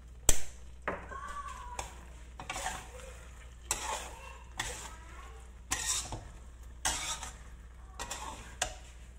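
Metal spatula stirring and scraping a thick coconut curry of tofu and vegetables around a wok, in short strokes about once a second. A sharp clack of the spatula against the pan comes just after the start and is the loudest sound.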